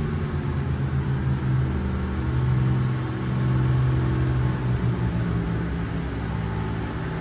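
Twin Volvo Penta KAD300 straight-six diesel sterndrive engines running together at full throttle, heard from the helm, a steady drone with only slight shifts in pitch. They are near their top speed, just over 4,000 RPM.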